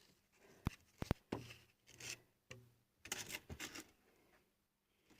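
A few sharp clicks of handling, then several short rasping strokes of a coarse sanding belt on a hand-held holder, rubbed against metal to take off rust.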